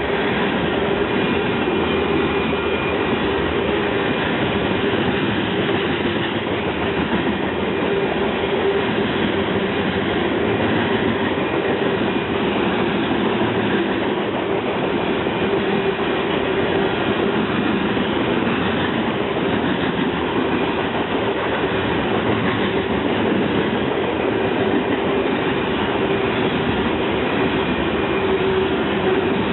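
Train cars rolling steadily past on the track, their wheels running over the rails with a loud, even noise and no breaks.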